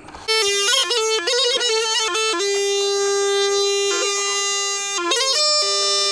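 Turkish tulum bagpipe starting suddenly, first with quick ornamented runs, then holding a long steady low note while the melody plays above it, with short breaks about four and five seconds in.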